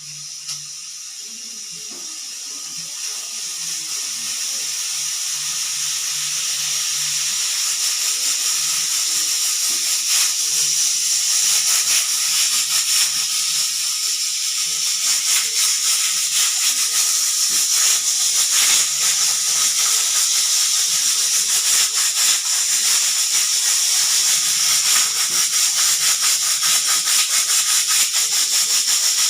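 Pressure cooker whistling: steam hisses out under its weight valve, growing louder over the first several seconds and then holding a loud, steady hiss with a fast flutter.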